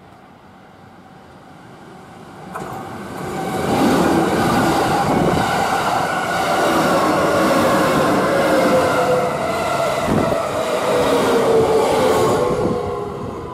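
Keikyu 2100-series electric train approaching and running close past at speed. A rumble of wheels on rail swells to loud within a few seconds, with a few knocks and a whine that slides down in pitch as it goes by, then fades near the end.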